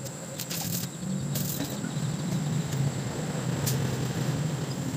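Stick welding on a metal pipe with a small inverter arc welder: the arc crackles in short spells over the first couple of seconds and then stops. A steady low hum and a steady high whine of crickets run underneath.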